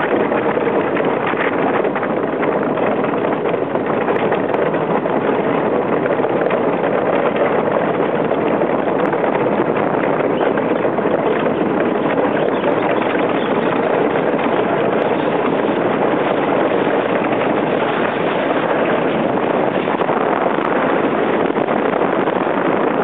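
Yankee-class iceboat's steel runners sliding fast over clear lake ice: a steady, unbroken rushing hiss, mixed with wind on the microphone.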